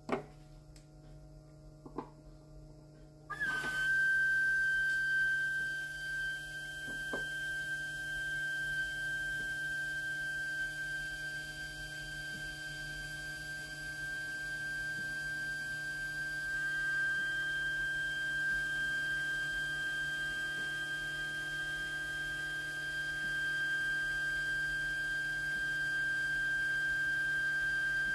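Bosch K-Jetronic fuel system switched on for an injector flow test about three and a half seconds in. There is a steady high whine with a hiss of fuel spraying from the injectors into collection bottles. Before it starts, a couple of faint clicks over a low hum.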